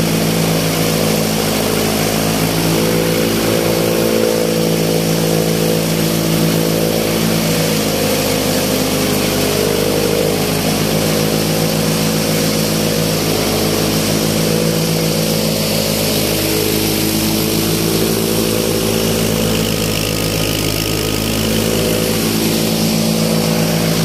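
Heavy-duty 3+4-blade chaff cutter running steadily under power, its drive engine humming as it chops dry stalks that are fed into it. The hum shifts slightly in pitch in the middle as the load changes.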